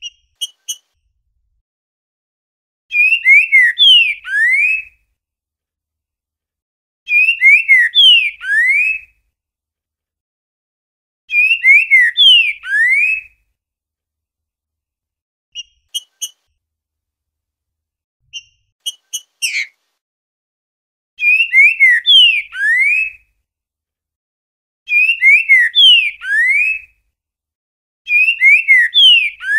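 Green-winged saltator (trinca-ferro) singing its 'boiadeiro' song: loud phrases of a few rich, gliding whistles, each about two seconds long and repeated every four seconds or so. A few short, sharp call notes fall in the gaps, near the start and about halfway through.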